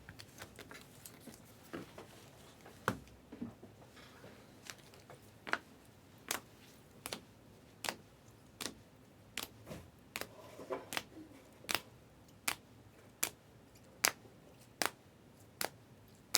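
Trading cards being flipped through one at a time, with a crisp card click a little more than once a second. The clicks come irregularly at first, then settle into a steady rhythm.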